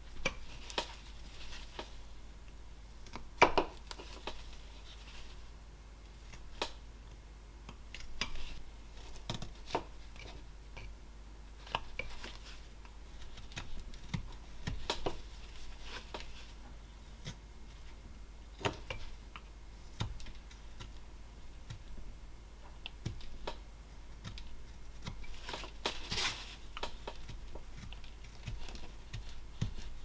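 Flexcut roughing knife carving a basswood block by hand: irregular slicing cuts and clicks as shavings come away, with short scraping strokes. A sharp click about three and a half seconds in is the loudest sound.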